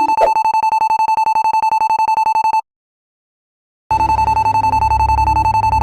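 Electric fire alarm bell ringing rapidly and continuously. It cuts out abruptly for about a second past the middle, then rings on with a low hum underneath.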